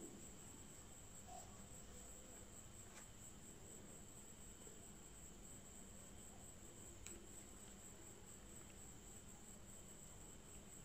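Near silence: room tone with a faint steady high-pitched whine and a low hum.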